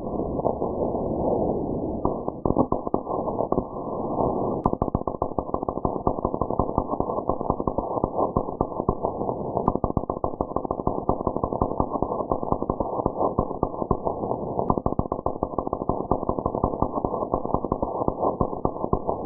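MIG welder arc crackling as a wire-feed gun welds thin metal rod, a dense, irregular crackle that starts about two seconds in after a smoother hiss, heard muffled with no high end.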